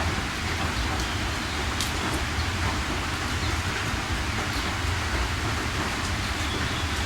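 Steady heavy rain: a dense, even hiss with a deep low rumble beneath it and scattered sharp ticks of individual drops.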